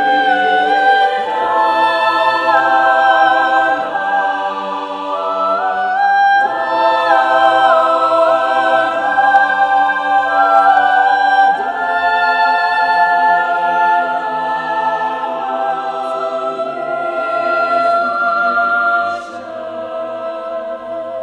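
Choral background music: several voices singing held chords that move in steps every second or two, getting quieter near the end.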